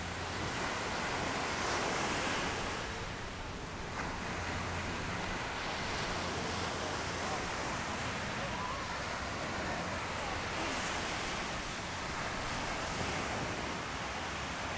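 Small surf breaking and washing up a sandy beach, a steady rush that swells and eases every few seconds, with faint distant voices of people in the water.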